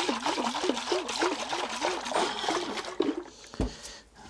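About half a litre of dilute phosphoric acid sloshing inside a Yamaha XV1100 Virago's small under-seat fuel tank as it is shaken by hand to dissolve the rust inside. The sloshing carries a tone that wavers up and down about three times a second and dies away a little before the end.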